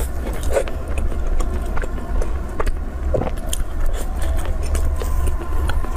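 Person chewing soft chilled bread with chocolate filling, with small wet mouth clicks scattered through, over a steady low hum.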